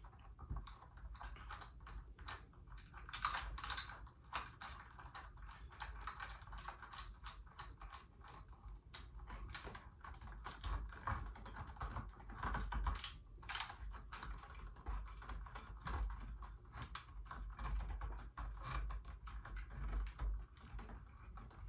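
An LED ring light and its parts being handled during unpacking and assembly: many rapid, irregular light clicks and taps.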